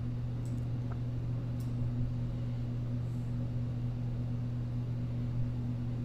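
Steady low hum of background room or equipment noise, with a few faint clicks.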